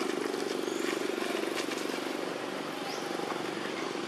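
Steady drone of an engine running, with a few short, faint, high rising chirps over it.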